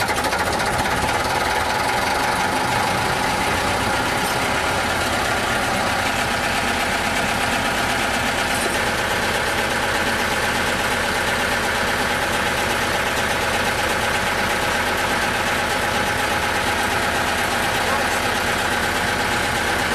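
Lister JP4 four-cylinder diesel engine running steadily at its governed speed just after its first start since being repaired, driving the generator's alternator. The running note holds level.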